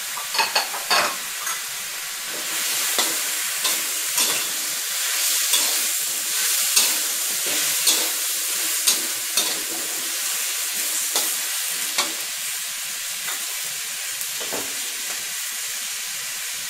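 Chinese kale leaves, stems and pork stir-frying in a wok: a steady sizzle, with frequent sharp scrapes and taps of a metal spatula against the wok as the food is tossed.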